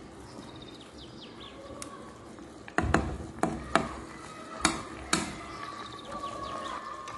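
Six sharp knocks in quick succession, spread over about two and a half seconds starting a little before the middle, over a low steady background with a few faint chirps about a second in.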